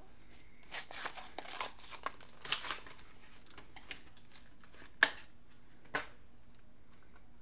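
Eyeshadow packaging being handled and opened: irregular crinkling and rustling, then two sharp clicks about a second apart.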